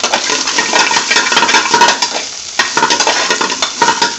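A metal spoon scraping and stirring in an aluminium frying pan while spinach and paneer sizzle in hot oil: uneven scraping strokes over a steady frying hiss.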